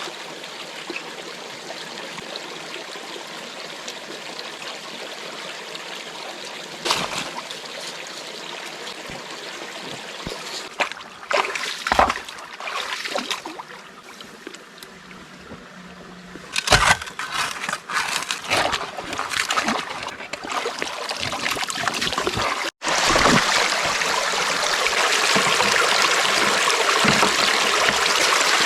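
Mountain brook water running steadily, with scattered splashes and knocks through the middle. After an abrupt cut about two-thirds of the way in, the running water is louder and closer.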